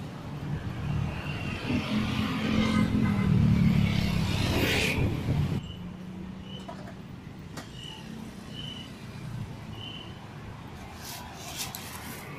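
Street traffic with a small engine passing close, loudest about three to five seconds in, then dropping to a quieter steady traffic hum with a few short high chirps.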